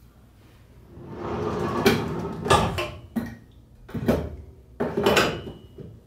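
A table saw's rolling table leaf and its wooden lock block being handled: a sliding rumble starts about a second in, then a series of separate knocks and clunks of wood and metal.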